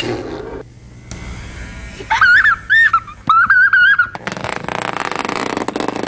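A young child's high-pitched giggling in short, wavering bursts. About four seconds in, a steady buzzing takes over.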